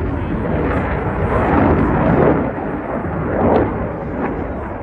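Loud jet noise from a Dassault Rafale's two M88 turbofan engines flying overhead, a continuous rumble that swells twice, about two seconds in and again about three and a half seconds in.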